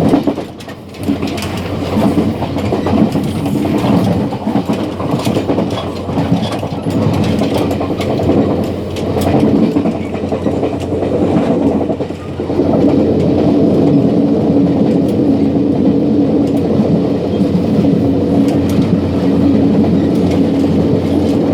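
Running noise in the gangway between cars of a DR3100 diesel multiple unit under way: a steady rumble and rattle with the clickety-clack of wheels over rail joints. The noise dips briefly near the start and again about twelve seconds in, after which a steady hum stands out more strongly.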